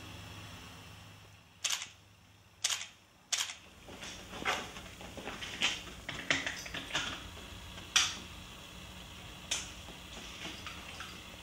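Painting knife tapping and dabbing thick white paint onto a stretched canvas: three sharp taps in the first few seconds, then a string of short scraping dabs, the loudest about eight seconds in.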